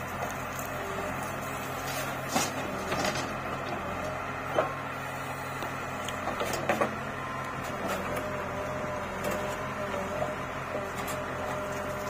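Diesel engine of the earthmoving machinery running steadily, with a few sharp knocks and clunks, the loudest a little under halfway through.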